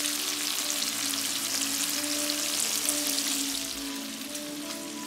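Chopped bacon sizzling and crackling steadily in hot fat in a frying pan.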